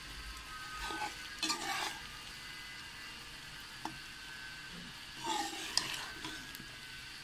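A metal spoon stirring and scraping through thick aloo baingan curry in a metal pan, over a steady low sizzle of oil. There are two bouts of scraping, about a second in and about five seconds in, with a sharp tick near the middle.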